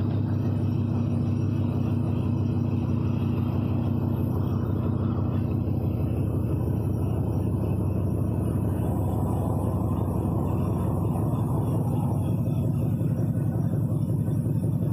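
Dodge pickup truck's engine idling steadily.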